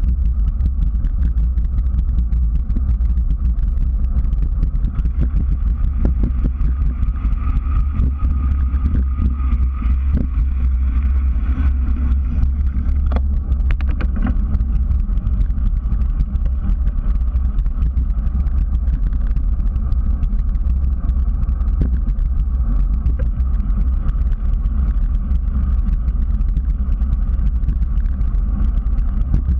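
Steady low rumble of a bicycle rolling along a concrete path, heard through a GoPro mounted above the front wheel: wind on the microphone and road vibration through the mount. A few clicks come about halfway through.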